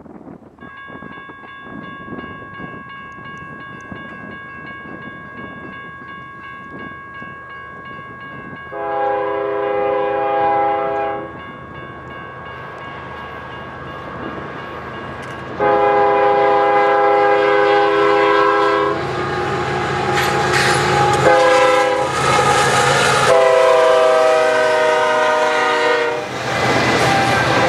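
Diesel freight locomotive horn sounding two long blasts, a short one and a long one, the grade-crossing signal, as the train approaches, its pitch dropping during the last blast as the locomotive passes. Under it the rumble of the train builds, and near the end the horn stops and the double-stack container cars rattle past.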